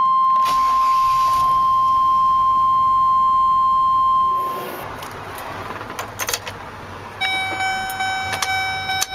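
Chevy Express instrument-cluster warning chimes. The 1996-2002 cluster gives one steady high beep that stops about four seconds in. After a few clicks, the 2003-2007 cluster's chime sounds over and over.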